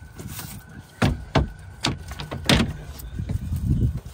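Several sharp knocks and clacks of a boat's hinged deck storage hatch lids being handled, shut and opened, the loudest about two and a half seconds in.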